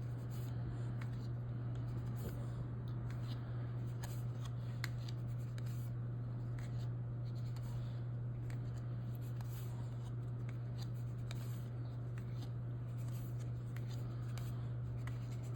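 Magic: The Gathering cards being handled and flipped through, with faint scattered clicks and rustles of card stock, over a steady low hum.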